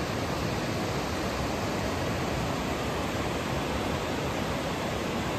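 Steady rushing of a river flowing over a rocky bed below, an even noise with no breaks.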